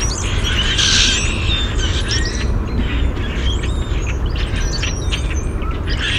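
Mixed flock of red-winged blackbirds, common grackles and brown-headed cowbirds calling all at once: a dense chorus of many overlapping short notes and rising and falling whistles, over a steady low background noise.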